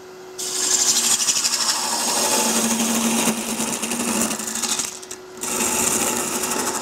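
Spindle gouge cutting a wooden blank spinning on a lathe, removing wood to shape it: a dense, fast-chattering hiss in two passes, with a short break about five seconds in. The lathe's steady motor hum runs underneath.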